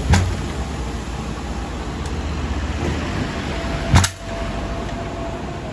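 Honda Tiger motorcycle engine running steadily at idle. Two sharp knocks come through, one just after the start and a louder one about four seconds in.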